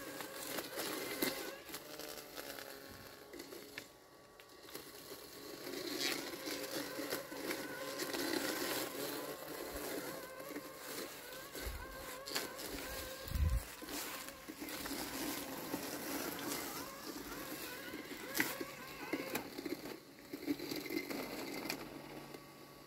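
LandXcape LX790 robotic lawn mower running through tall wet weeds: a steady motor hum that wavers in pitch as the load changes, with scattered clicks and rustles and a couple of low thuds about halfway through.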